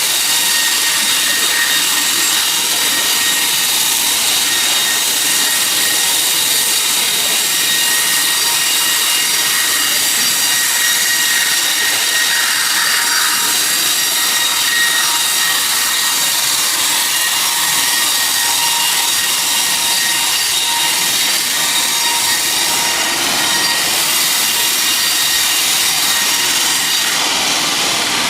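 Sawmill saw running steadily through a teak log: a loud, even rushing noise with a faint high whine, holding constant with no breaks.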